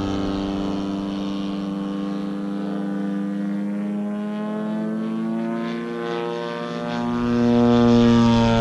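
The DLE 120cc twin-cylinder two-stroke gas engine of a 105-inch Slick 580 RC aerobatic plane, running steadily in flight with a propeller drone. Its pitch drifts slightly, and it grows louder about seven seconds in.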